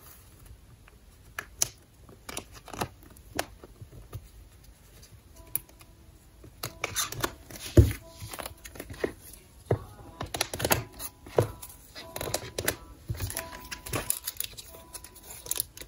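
Clear plastic binder sleeves crinkling and rustling as photocards are slid in and out of the pockets, with irregular light taps and clicks of card on plastic; the busiest handling comes in the second half, with the sharpest tap about eight seconds in.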